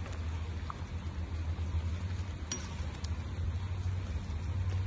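Meat and vegetable stew boiling hard in a cast-iron cauldron over a wood fire, an even bubbling hiss over a steady low rumble. A couple of sharp clicks come about halfway through.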